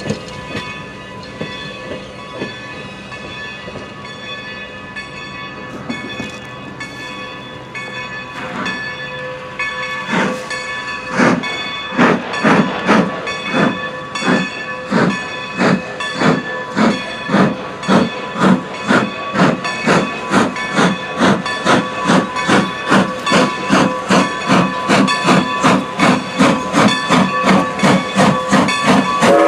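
Strasburg Rail Road steam locomotive working hard as it approaches, its exhaust chuffing in a steady beat of roughly two chuffs a second that starts about ten seconds in and grows louder. Before the chuffing, a steady hiss and rumble of the train.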